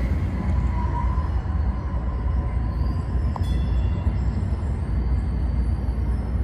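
Light rail train rumbling as it pulls away, a faint high wheel squeal fading out over the first couple of seconds, leaving a steady low rumble.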